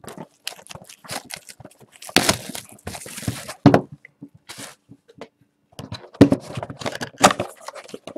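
Plastic shrink wrap on a trading-card hobby box crinkling and tearing as the box is unwrapped and handled, in irregular rustles with louder rips about two seconds in and again around six seconds.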